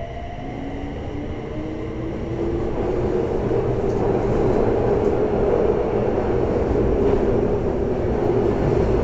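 Toei 6300 series subway train accelerating. A motor whine rises in pitch and fades about two seconds in, giving way to a steady, growing rumble of wheels and running noise in the tunnel.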